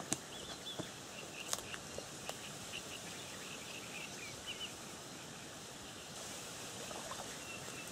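Outdoor ambience: steady wind hiss, with small bird chirps over the first few seconds and a few faint clicks.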